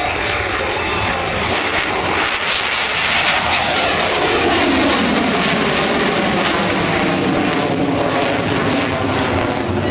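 Fighter jet taking off and climbing away under full power: loud, steady jet noise, with a whine that falls in pitch over the first few seconds as the jet passes.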